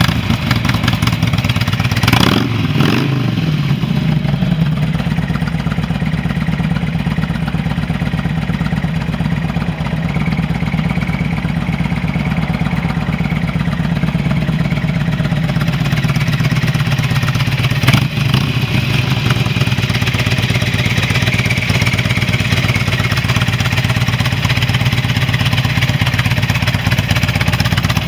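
2004 Harley-Davidson Road King Classic's Twin Cam 88 V-twin engine, just started: revved briefly about two seconds in, then idling steadily. A single sharp click comes partway through.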